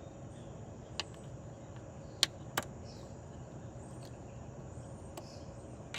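A few sharp clicks, three in the first three seconds and a fainter one near the end, as an Allen wrench turns the clamp screw on a T1N Sprinter's wiper pivot housing. Faint steady background noise lies beneath them.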